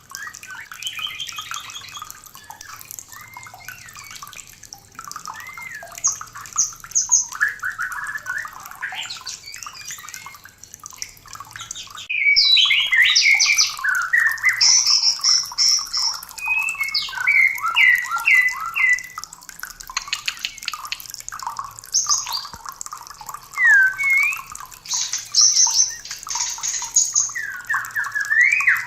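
White-rumped shamas of a mating pair singing: a continuous run of varied phrases of clear whistles, glides and fast trilled notes, louder after a brief break about twelve seconds in.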